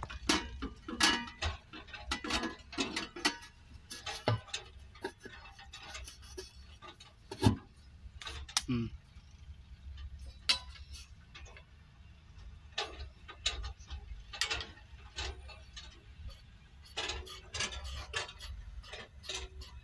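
Plastic air-cleaner cover being handled and pressed onto an excavator's air filter housing: scattered clicks, taps and knocks of plastic on the housing, with a sharper knock about seven and a half seconds in. A low steady rumble runs underneath.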